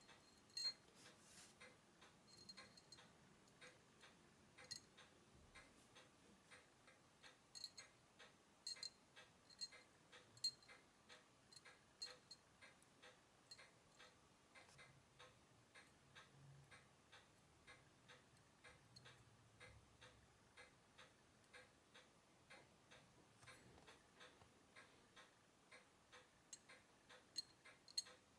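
Faint, regular ticking, with now and then a louder sharp click of steel tweezers against the brass wheels and steel plate of a Unitas 6497 watch movement as its train wheels and bridge are set in place.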